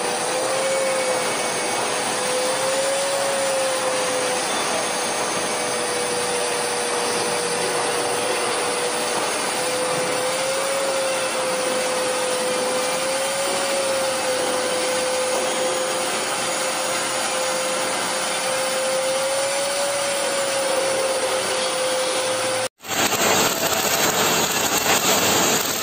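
Magnetic-base drill cutting holes in a steel plate: a steady motor whine with a slight waver over the hiss of the cutter in the metal. Near the end it cuts to the crackle of an arc welder laying a bead on a steel girder.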